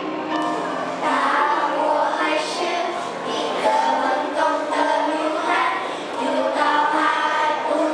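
A group of children singing a Chinese-language song over musical accompaniment.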